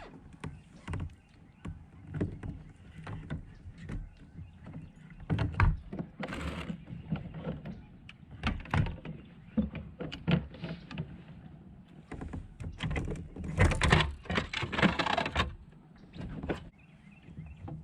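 Irregular knocks and clunks on a fishing kayak's hull, from someone moving about and handling gear. There are longer rushing bursts about six seconds in and again about fourteen seconds in.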